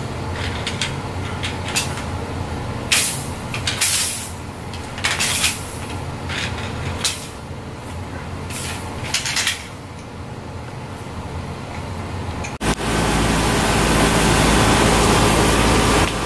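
Hard plastic baby toys clacking and rattling as they are handled and knocked together, in a series of short irregular clatters. About twelve and a half seconds in, this gives way to a steady, louder rushing noise.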